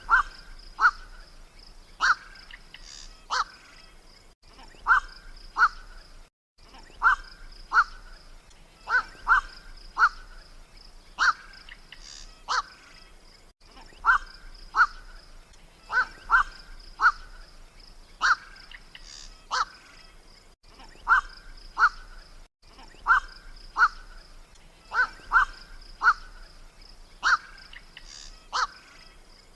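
Black-crowned night heron (koak) calls played as a looped hunting lure: short, harsh single "kwak" calls, about one a second. A steady high-pitched drone runs behind them, and the recording drops out briefly every several seconds where the loop restarts.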